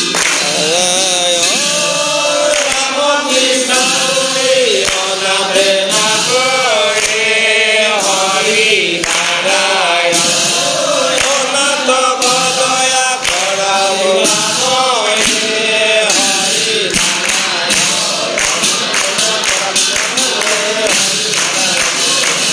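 Men's voices chanting an Assamese devotional naam together, the melody rising and falling in long phrases, with frequent sharp strikes keeping time.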